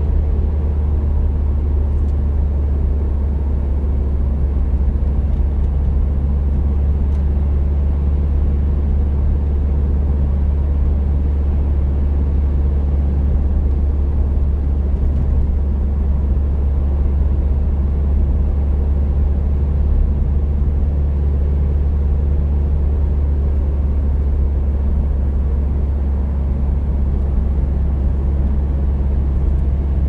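Subaru WRX STI Type S heard from inside its cabin while cruising steadily: a constant low drone from its turbocharged flat-four engine and the road, with faint steady engine tones above it.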